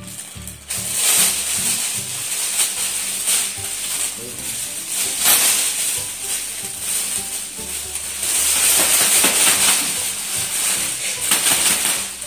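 A large thin plastic shopping bag rustling and crinkling as it is handled and opened, with plastic-wrapped packs being pushed into it. The crinkling starts about a second in and goes on with uneven crackles.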